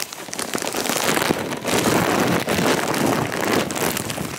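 Loud crinkling and rustling of a thin clear plastic bag being pulled off a roller skate close to the microphone.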